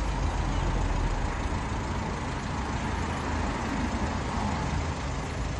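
Steady low rumble and hiss of a motor vehicle on the move, with no sudden cracks or bangs.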